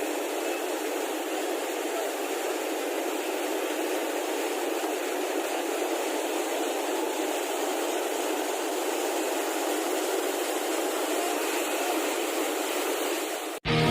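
Steady rush of white water in river rapids, cutting off abruptly near the end as music begins.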